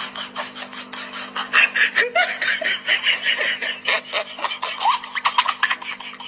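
A person laughing over rapid scratching and scraping as a cat paws snow off a car windshield, its claws working on snow and glass. A steady low hum runs underneath.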